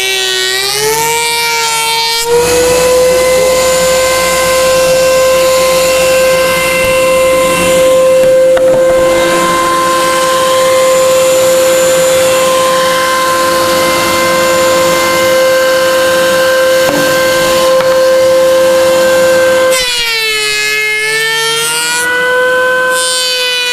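Surface planer running with a loud, high motor whine while planing a board of black limba. For the first two seconds and again from about 20 s on, the whine wavers in pitch; in between it holds steady under a rushing cutting noise as the board feeds through the cutterhead.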